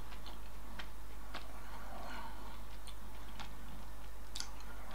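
A person quietly chewing chocolate, with a few faint mouth clicks over a steady low hum.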